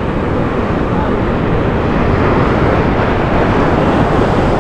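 Rough sea surf breaking on a sandy beach, a steady rushing noise, with wind buffeting the microphone.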